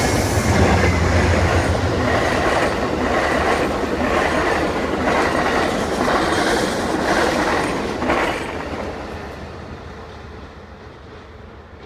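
Train rolling past, its wheels clacking over the rail joints in a steady repeating rhythm with a thin squeal from the wheels, then fading away over the last few seconds as it moves off.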